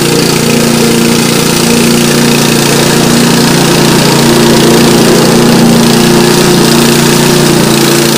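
Engine of a tracked remote-controlled lawn mower running steadily while it cuts through tall grass and brush.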